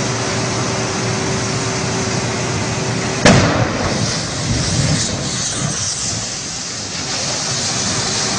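A burning vehicle explodes: one sharp, loud blast about three seconds in, followed by a low rumble for a second or two as the fireball rises.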